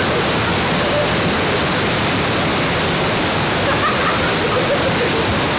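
Waterfall pouring into a rock plunge pool: a loud, steady rush of falling water. Faint voices come through about four seconds in.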